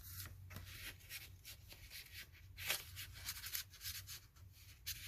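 Faint rustling and rubbing of paper as handmade journal pages and tags are handled, in many short strokes, the loudest a little over halfway through.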